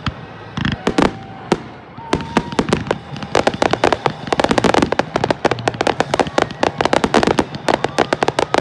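Fireworks display: a few single sharp reports, then from about two seconds in a rapid, dense barrage of many bangs and crackles in quick succession.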